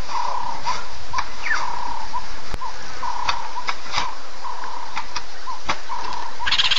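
A short call on one steady pitch, repeating over and over about once a second, from a bird or frog, over a steady hiss, with a few sharp clicks.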